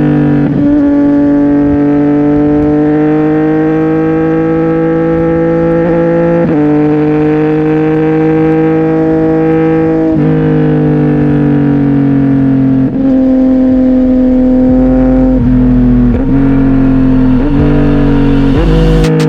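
CFMOTO 675NK's inline-three engine running through a titanium full-system exhaust while riding. The engine note holds steady or climbs slowly, with brief breaks and pitch drops every few seconds, coming more often near the end, like gear changes and throttle lifts.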